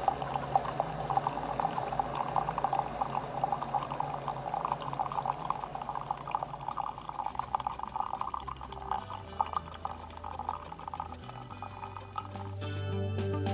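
Coffee maker brewing: hot coffee trickling and dripping in a thin stream into a ceramic pitcher. Music comes in near the end.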